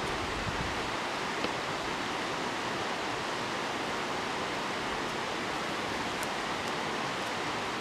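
Steady rushing of a creek and waterfall, an even hiss that does not change.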